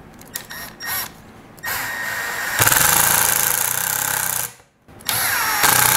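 Cordless drill driving pocket-hole screws into a face-frame joint. It runs for about three seconds, getting louder as it goes, stops briefly, then runs again.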